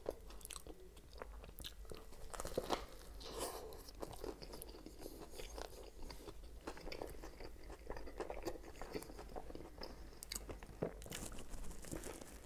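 Close-up eating of a toasted Subway sub: bites through the crusty bread and chewing, quiet crunching with many small mouth clicks.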